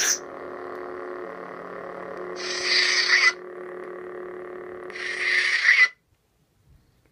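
Replica lightsaber sound boards humming steadily, with a power-down (retraction) sound about two and a half seconds in and another about five seconds in, as the blades are switched off. The hum cuts off suddenly with the second one, just before six seconds in.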